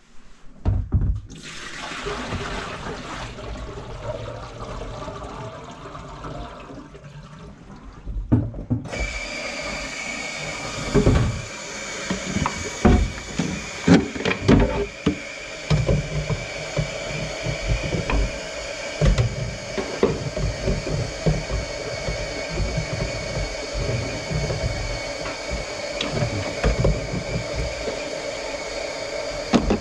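Drain snake being worked in a grease-clogged kitchen sink drain: a steady rushing noise comes in louder about nine seconds in and runs on, with repeated knocks and clatter of the cable and tools against the pipes and cabinet.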